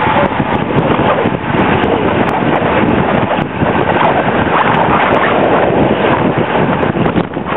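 Loud, steady wind rush buffeting the microphone of a camera mounted on a road bicycle in motion.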